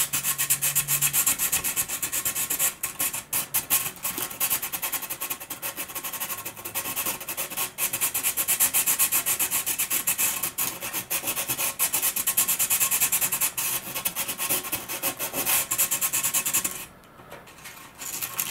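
Sanding inside a model glider's tail boom with rapid back-and-forth rubbing strokes, scuffing the sidewall so epoxy will bond to it. The strokes stop about 17 seconds in.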